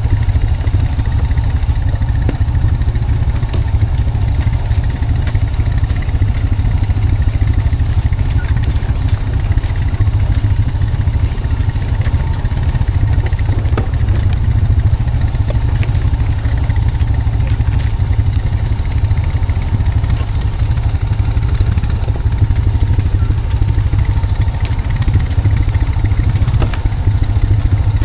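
Honda Foreman 520 ATV's single-cylinder engine running steadily while towing a log on a skidding arch, with scattered light clicks and knocks.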